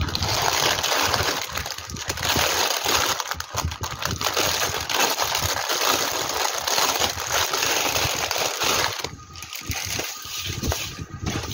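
Plastic packaging crinkling and rustling as a plastic mailer bag is handled and bubble-wrapped contents and a sealed plastic bag are pulled out. It is a dense crackle that eases off about nine seconds in.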